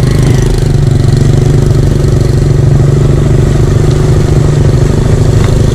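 Motorcycle engine running steadily at low speed, heard from on the bike.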